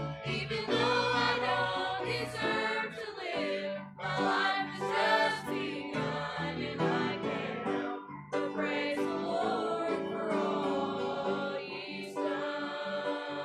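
A church choir of men and women singing a hymn together.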